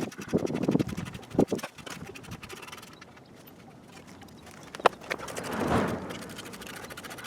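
Hand tools working the 15mm brake caliper bolts: scattered metal clatters and knocks, with one sharp clink about five seconds in.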